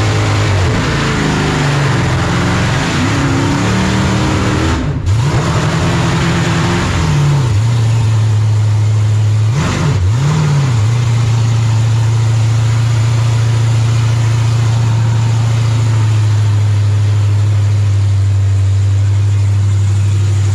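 Supercharged burnout car engine heard from inside the cabin, revving hard with a loud noise haze as the tires spin. It lifts off briefly about 5 s in and again near 10 s, then settles to a steady idle.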